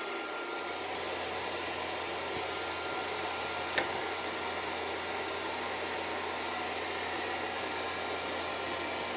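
Steady, even hiss of background noise, like a fan or ventilation, with a single sharp click a little before four seconds in.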